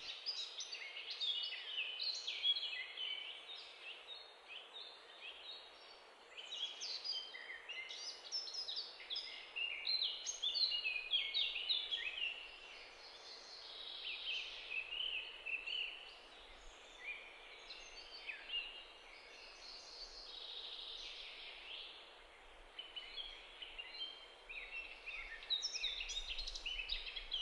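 Small birds chirping continuously, many short calls overlapping, over a steady soft hiss.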